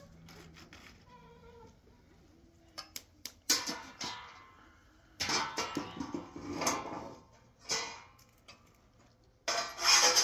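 A metal griddle clatters several times as it is handled and set on the stones over a wood fire. About nine seconds in, a metal spatula starts scraping loudly and steadily across the griddle's surface. Faint animal calls are heard in the first couple of seconds.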